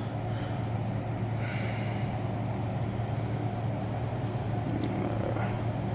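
Steady low mechanical hum with a steady hiss above it.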